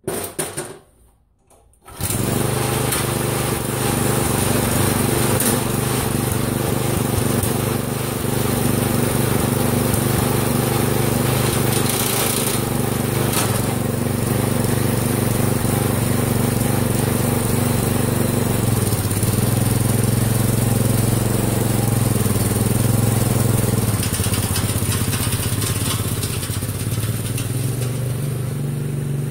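Rat-rod lawn tractor's small engine starting up about two seconds in and then running steadily and loud, its note shifting a couple of times as the tractor is driven off through the snow.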